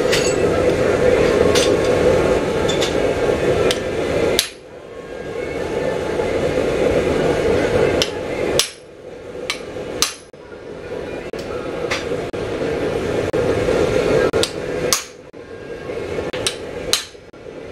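Hand hammer striking hot square steel bar on an anvil: scattered sharp blows, a few seconds apart, over a steady hum that drops out briefly several times.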